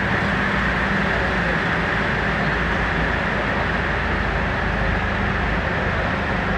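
Steady bus engine and tyre noise heard from inside the cabin while driving at an even speed through a road tunnel.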